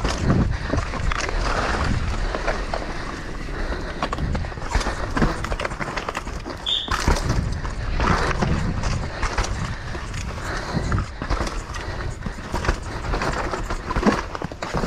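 Downhill mountain bike ridden fast down a rough dirt track: tyres running over dirt with a constant clatter of rattles and knocks from the bike over bumps, and wind buffeting the microphone as a low rumble.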